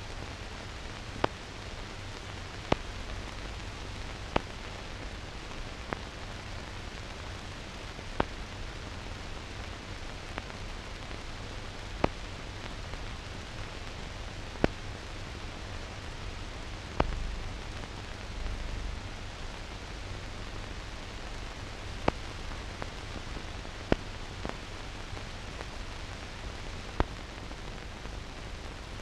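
Steady hiss with sharp clicks at irregular intervals of a second or two: the empty-track noise of a silent newsreel film transfer, with no recorded sound.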